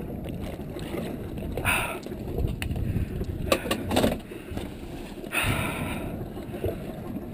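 Wind rushing over the microphone and water washing against a small boat's hull, with two louder swishes of water and a few sharp knocks in the middle.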